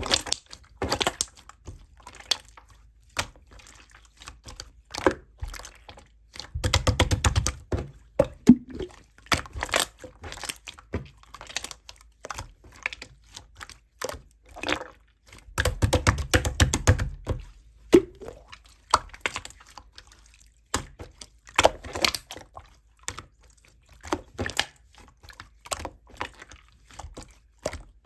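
Jelly-textured slime being squeezed and poked by hand, giving a run of wet clicks and small pops, with two spells of rapid crackling about 7 and 16 seconds in.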